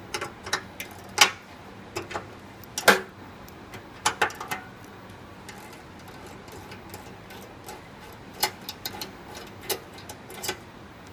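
Sharp, irregular metallic clicks and clinks of a spanner and the brass jet fittings of a gas-stove burner valve being handled, while the burner jets are changed for a propane-to-natural-gas conversion. The loudest clicks come about a second and three seconds in, with a scattered run of lighter ones later.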